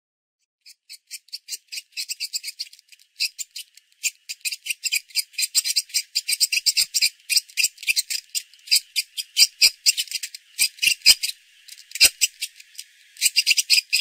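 Beetle sound: a long run of rapid, high-pitched dry clicks, several a second and bunched into short clusters, starting just under a second in.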